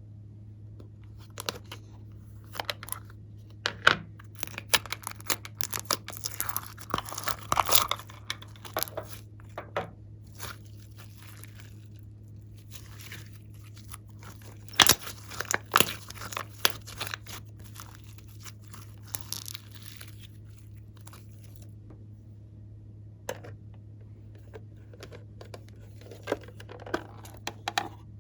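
Glossy slime being squeezed and worked by hand, giving irregular crackles, pops and crinkly tearing sounds over a steady low hum. The crackling comes in two busy stretches, thins out in the middle, and is sparse near the end.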